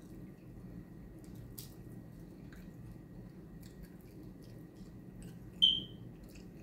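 Eating saucy barbecue chicken wings by hand: small wet, sticky squishing and smacking clicks as the meat is pulled apart and bitten. A short, sharp, high squeak about five and a half seconds in is the loudest sound.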